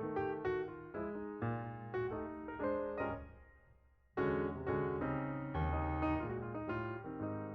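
Background piano music, a string of struck notes and chords; it fades down about three seconds in and picks up again a second later.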